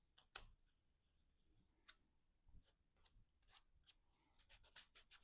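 Near silence with faint, scattered taps and rustles of a paper pop-up card being handled, and a quick run of small clicks near the end.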